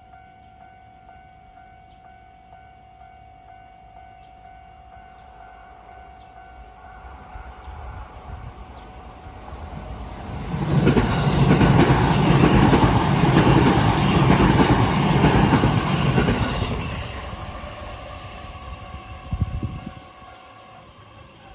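Japanese level-crossing alarm ringing with a steady, evenly repeating tone while a JR Nambu Line electric train approaches, passes over the crossing loudly for about six seconds in the middle, and fades away. A short low thud comes near the end, and the alarm stops just after it.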